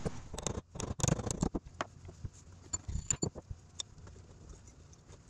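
Steel parts of a Farmall 300 torque amplifier's planetary carrier clinking and knocking as they are handled and taken apart by hand on a workbench. A cluster of sharp knocks comes in the first second and a half, a few more around three seconds in, then scattered lighter clicks.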